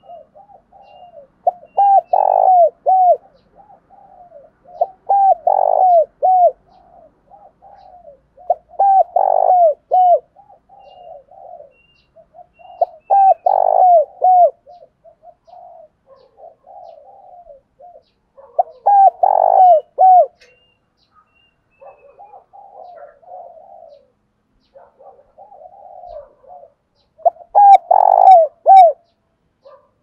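Spotted dove cooing: a loud phrase of a few round, hooked coo notes, given six times, with softer coos between and a longer pause before the last phrase.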